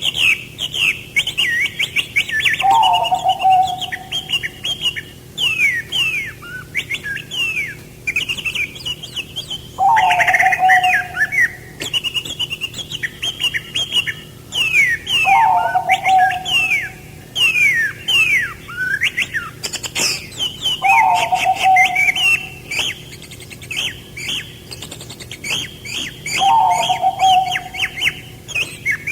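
Several songbirds chirping continuously in quick, downward-sweeping notes, with a lower call repeated about every five to six seconds.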